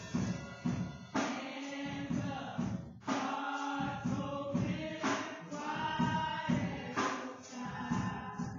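Gospel music: a choir singing over a band with drums, strong accents falling about every two seconds.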